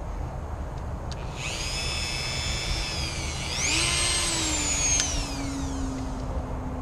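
Dremel rotary tool with a small wire wheel whining at high speed as it scrubs an aluminum microchannel coil clean for brazing. It starts about a second and a half in, jumps up in pitch around the middle, then slowly falls away. A steady low rumble runs underneath.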